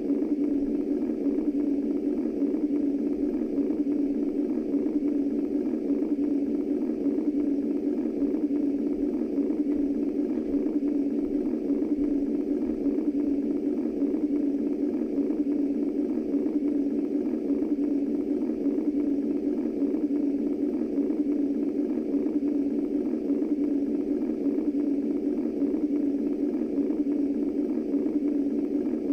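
Womb white noise for soothing babies: a steady, even low rushing noise that does not change.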